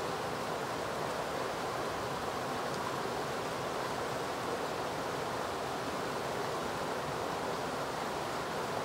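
River water rushing steadily over a shallow rocky riffle, an even, unbroken wash of noise.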